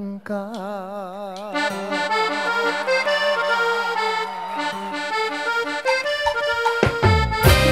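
Accordion playing the melody of a slow cumbia, opening on a held note with vibrato and moving on through a run of stepped notes. About seven seconds in the full band comes in loudly with bass.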